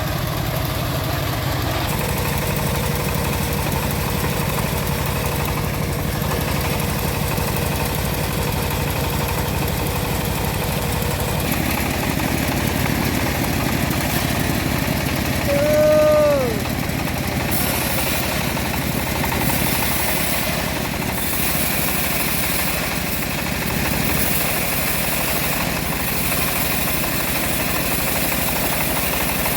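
Engine-driven homemade bandsaw mill running steadily while sawing a teak log, its sound growing brighter and hissier about halfway. A single short call with a falling pitch rises briefly above it near the middle.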